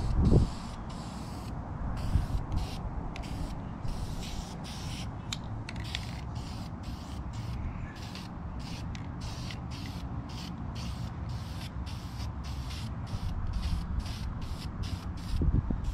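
Aerosol can of vinyl dye spraying in short, quick bursts, the hiss starting and stopping a few times a second while a light first tack coat goes on. A steady low rumble runs underneath, with a knock right at the start.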